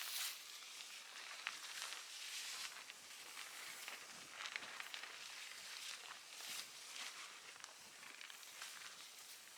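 Footsteps crunching through dry leaf litter and twigs, soft and irregular, with a few small sharp snaps.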